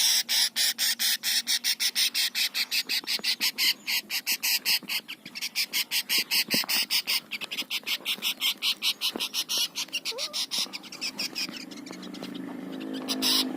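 An animal call made of fast, evenly spaced pulses, about six or seven a second and high-pitched, that stops about twelve seconds in and leaves a steadier, fainter hiss.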